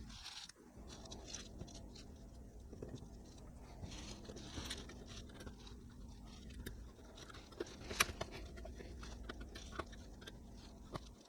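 Faint clicks, taps and scrapes of small parts and cables being handled on a workbench, with one sharper click about eight seconds in.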